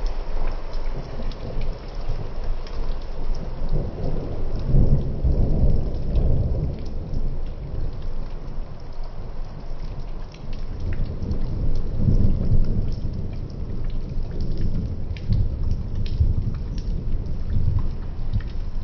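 Rain falling in a thunderstorm, with deep rolling rumbles of thunder that swell about four seconds in and again around the middle.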